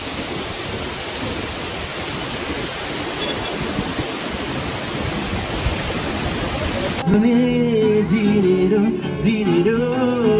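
Steady rushing of water from a stream. About seven seconds in it cuts abruptly to background music with a singing voice.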